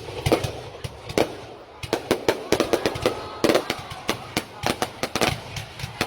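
Fireworks going off in a rapid, irregular series of sharp cracks and bangs, several a second, thickest between about two and five seconds in.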